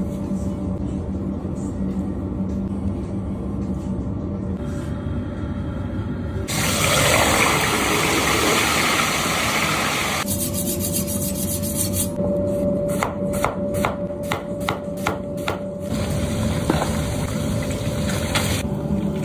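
Gloved hands rubbing seasoning over a whole raw fish. About six seconds in, a loud burst of hot oil sizzling as the fish fries in a cauldron, which settles after a few seconds. Later comes a quick run of sharp clicks, about three a second.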